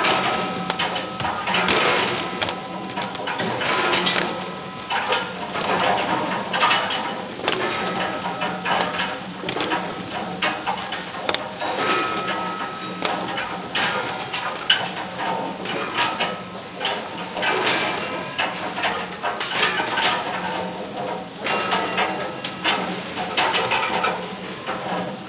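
Date-sorting conveyor line running: a steady machine hum under continuous clattering and knocking.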